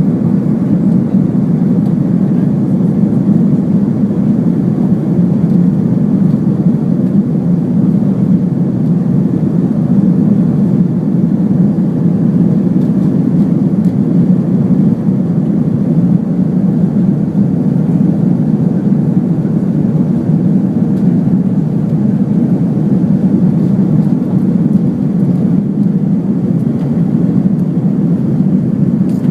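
Steady low rumble of jet engines and rushing air inside the passenger cabin of an Airbus A330-300 airliner, with no change in level or pitch.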